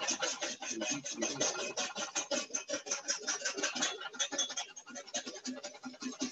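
Wire whisk beating hollandaise sauce in a metal bowl in rapid, even strokes, about eight a second, as clarified butter is beaten into the emulsion.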